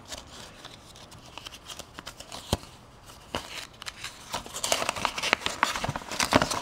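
Crinkling and rustling of a plastic wrapper and a paper instruction leaflet as the leaflet is pulled out and unfolded. There are sparse crackles and a sharp click about two and a half seconds in, and the crinkling grows busier in the second half.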